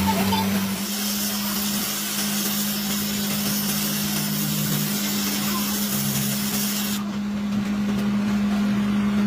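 A workshop machine running with a steady hum and a hiss over it; the high part of the hiss cuts off suddenly about seven seconds in while the hum carries on.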